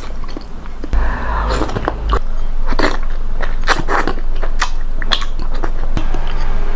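Close-up eating sounds of instant cuanki noodle soup: noodles slurped off a spoon and chewed, with many short wet mouth clicks.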